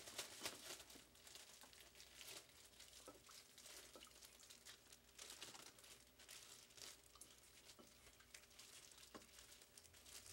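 Faint crinkling of a plastic bag as beef pieces and flour are shaken inside it, a scatter of small crackles.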